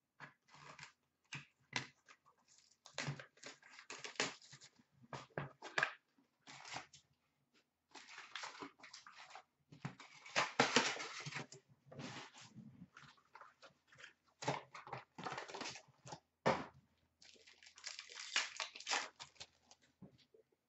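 Hockey card pack being opened by hand: the wrapper crinkles and tears in irregular bursts, loudest about halfway through, and the cards rustle as they are handled.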